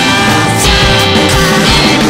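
Rock music with a steady beat, a full band track with a semi-hollow electric guitar strummed along with it.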